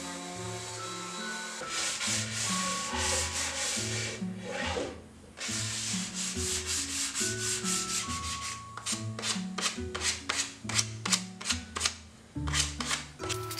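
Hand sanding of a pine board with a sanding block: rhythmic back-and-forth rubbing strokes that become distinct strokes, about three a second, in the second half, over background music.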